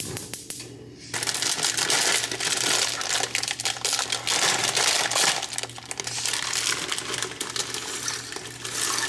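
Dry pasta being shaken out of its plastic packet, a dense rattle of many small clicks with the bag crinkling, starting about a second in.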